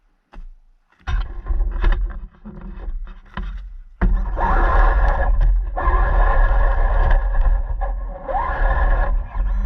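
Radio-controlled car driving, its motor running with scraping and rattling: short spurts starting about a second in, then continuous and louder from about four seconds.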